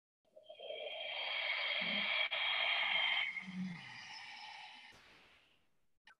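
A woman's long, audible breath close to the microphone, swelling in and then fading away over about five seconds, taken in time with a cat-cow movement; the next breath begins right at the end.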